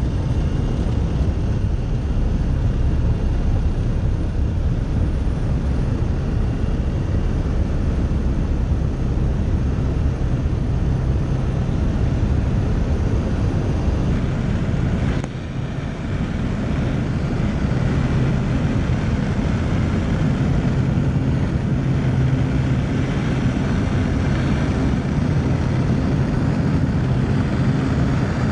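Steady drone of a high-wing propeller plane's engine at climb power after takeoff. The level dips briefly about halfway through.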